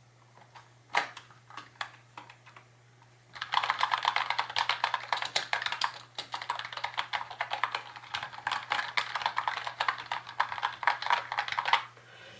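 Typing on a Red Thunder 60% RGB membrane keyboard that has been tape-modded and stuffed with foam and bubble wrap to quiet it. A few single key presses come first, then fast continuous typing starts about three and a half seconds in and stops just before the end.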